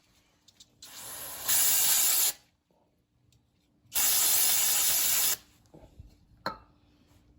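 Two bursts of spray from an aerosol can, each about a second long: one about a second in and one about four seconds in, followed by a small click.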